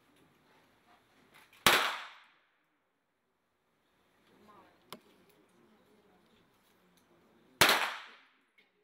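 Two .22 sport pistol shots about six seconds apart, each a sharp crack followed by a short ringing echo. A faint sharp click comes between them.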